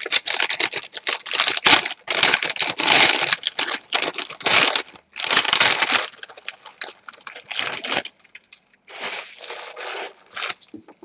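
Plastic packaging crinkling and rustling in irregular bursts as a replacement laptop display panel is handled and unwrapped, with some tearing sounds. The rustling is loudest for the first several seconds and fainter near the end.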